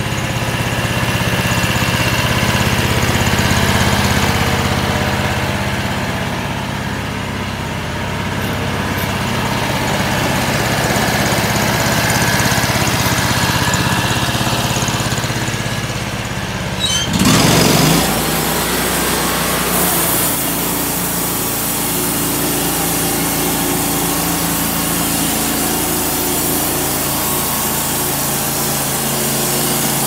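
Gasoline engine of a homemade bandsaw mill running steadily. About seventeen seconds in there is a sudden loud rush, and the engine note then settles lower with a steady hiss over it as the band blade cuts through a walnut log.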